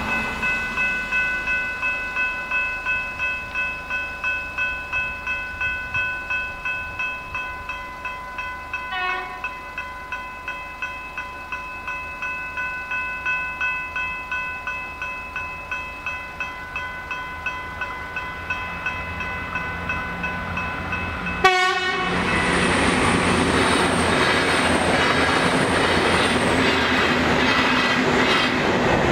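General Signals Type 3 electronic level-crossing bells ringing in a rapid, even rhythm. About two-thirds of the way in comes a short loud train-horn blast. Then a V/Line VLocity diesel multiple unit rushes over the crossing, its noise mostly covering the bells.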